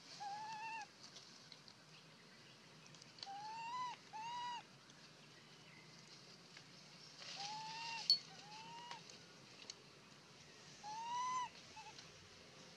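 Baby macaque crying with repeated high, arched coo calls, about six of them, each about half a second long, coming singly or in pairs a few seconds apart.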